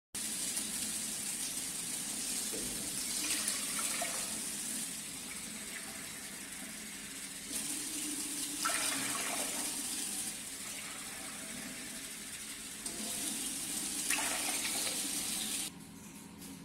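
Tap water running into a non-stick saucepan, filling it, with the flow swelling louder a few times. The sound drops off sharply near the end.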